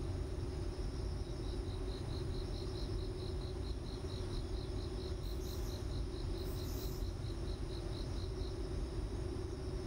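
Graphite pencil shading on drawing paper, with two brief scratchy strokes about halfway through, over a steady low hum and hiss. A thin high chirping pulse repeats evenly about five times a second from about a second in until near the end.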